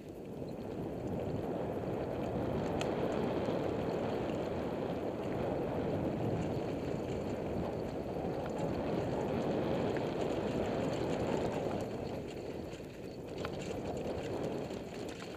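Mountain bike rolling fast down a dirt and loose-rock trail: a dense, steady rush of wind on the microphone mixed with tyre rumble and bike rattle, with a few faint clicks of stones. It eases briefly near the end.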